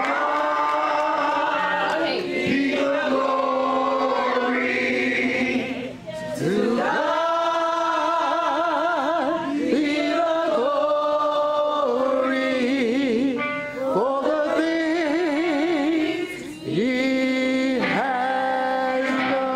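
A woman and a man singing a gospel song together, holding long notes with wide vibrato, with short breaths between phrases about six seconds in and twice more near the end.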